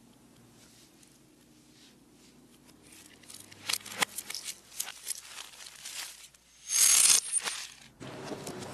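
Gold chains and rings clinking and rattling against a hard, glossy surface as they are handled, played backwards. The sharp clicks start about three seconds in, and a short loud hiss comes about seven seconds in.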